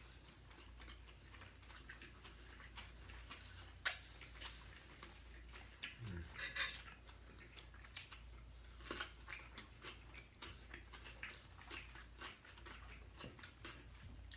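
Close-up chewing of a cheeseburger meal: soft wet mouth clicks and smacks, with a sharper click about four seconds in.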